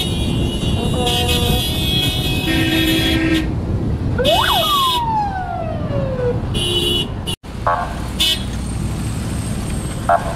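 Car horns honking again and again from a convoy of cars, over engine and road noise, with a siren-like tone that sweeps up and falls back about four seconds in. The sound cuts out abruptly about seven seconds in.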